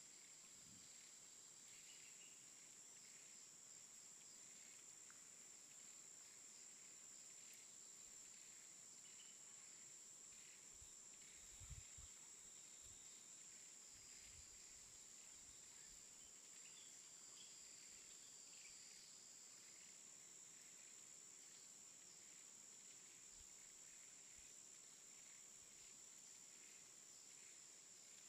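Faint outdoor ambience: insects keeping up a steady, high-pitched drone, with scattered faint bird chirps. There is one soft bump about twelve seconds in.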